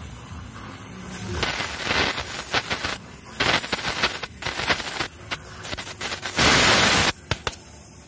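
Oxy-acetylene welding torch with a neutral flame hissing on a mild-steel pipe joint, with irregular crackling and spitting as filler rod is fed into the weld pool. The hiss comes and goes unevenly, with a louder stretch of it lasting under a second near the end.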